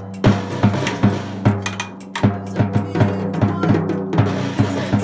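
A small drum kit banged with sticks: bass drum and drum heads struck in an uneven, loose rhythm of several hits a second.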